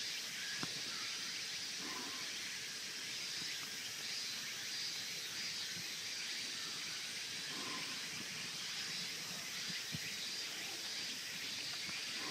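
Outdoor zoo ambience: a steady high-pitched hiss of background noise, with a faint click about half a second in and another near ten seconds.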